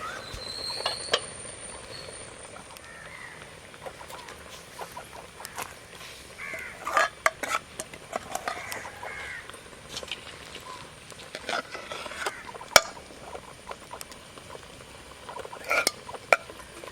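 Scattered clinks, knocks and scrapes of a spoon against a cooking pot as masala paste goes into the simmering crab curry, with one sharp knock standing out near the end. Short chirping calls sound now and then in the background.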